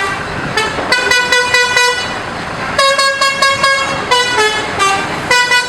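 Bus telolet horn, a multi-tone musical air horn, playing a tune in short phrases of quick notes with brief pauses between them.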